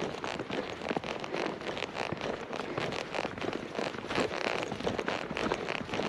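Footsteps crunching in fresh snow, a dense, irregular run of crackling crunches that keeps on without a break.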